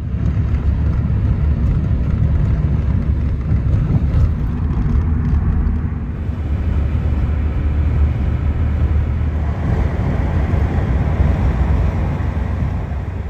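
Car cabin road noise while driving: a steady low rumble of engine and tyres with some hiss. Its tone shifts about six seconds in.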